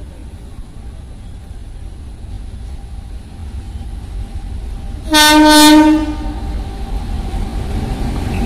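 WAG-9HC electric locomotive sounding its horn in one blast of about a second, about five seconds in, over the low rumble of the approaching train, which grows steadily louder towards the end.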